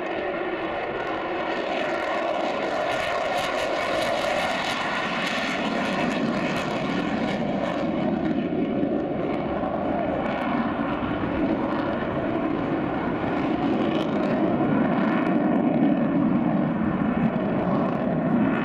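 Avro Vulcan bomber's four Rolls-Royce Bristol Olympus 202 jet engines heard from the ground during a display pass: a loud, steady jet noise whose tone slowly rises and falls as the aircraft moves across the sky.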